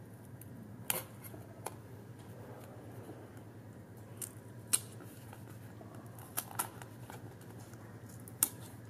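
Die-cut slots in a card sheet being poked out with a thin metal pick: several short, sharp paper clicks and snaps as the pieces pop free, spread unevenly, with two close together past the middle.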